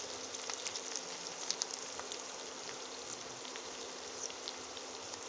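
Chopped onions frying in hot oil in a kadhai, softening: a steady sizzle with small crackles scattered through it.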